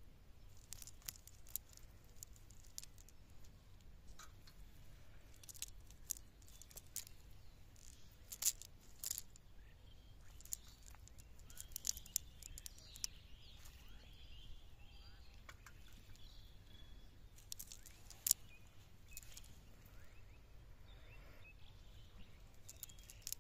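Cast net being handled as the catch is picked out of the mesh: faint rustling with scattered small sharp clicks, a few louder ones about a third of the way in, in the middle, and later on.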